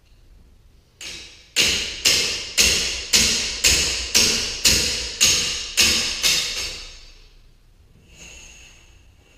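A metal tool striking the steel torsion spring shaft hardware of a garage door: about eleven sharp metallic taps, roughly two a second, each ringing briefly. The first is softer than the rest.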